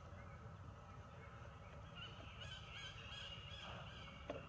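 A faint, high, wavering animal call in several short pieces, lasting about a second and a half from about two seconds in, with a soft click near the end.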